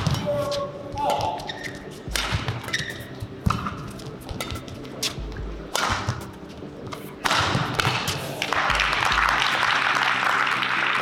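Badminton rally: a string of sharp racket strikes on the shuttlecock, including an overhead smash about five seconds in. Then, from about seven seconds in, steady crowd applause once the rally ends.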